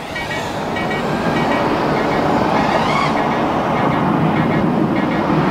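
Motors and propellers of a 5-inch FPV freestyle quadcopter in flight: a dense, steady whirr whose pitch rises briefly with the throttle about three seconds in.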